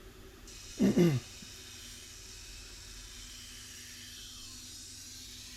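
A short, falling, grunt-like vocal sound from a person about a second in, then a faint steady hiss.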